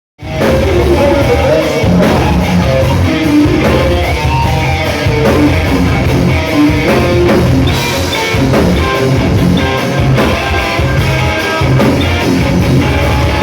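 Live rock band playing loudly: electric guitar over bass and a drum kit.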